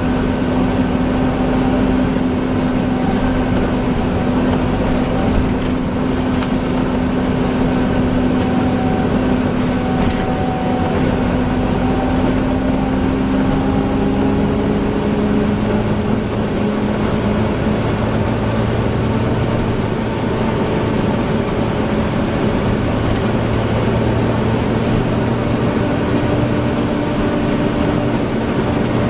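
Volvo Wright Eclipse Gemini double-decker bus running, with a loud, steady, vacuum-cleaner-like whine (the 'hoover') over the engine drone. About halfway through the whining tones shift lower and a deeper hum joins.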